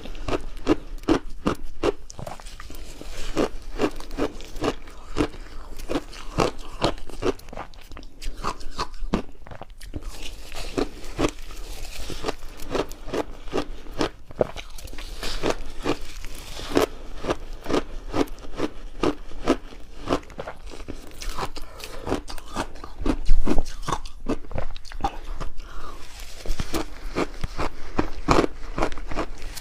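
Close-miked chewing of refrozen shaved ice chunks: rapid, repeated crunching bites, several a second, with one louder crunch about 23 seconds in.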